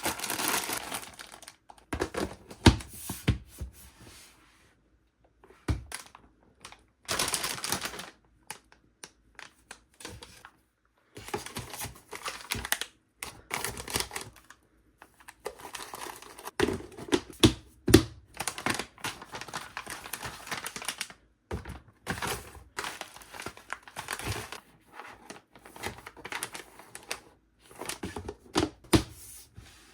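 Plastic packaging crinkling and rustling, with quick clicks and knocks of containers and items being handled and set down, in short stretches separated by brief silences.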